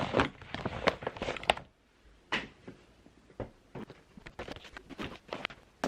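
Irregular light clicks and taps, closely packed in the first second and a half, then sparser.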